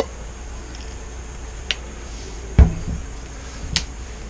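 A few light clicks and one dull knock about two and a half seconds in, over a low steady hum.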